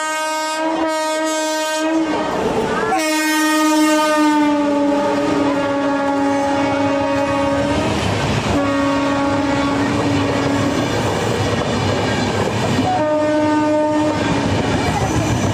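Indian Railways WAP-7 electric locomotive blowing its horn in several blasts as it comes up at speed and passes, the pitch of the long blast dropping as it goes by. Its coaches then rush past with a steady rumble and clickety-clack of wheels over the rail joints.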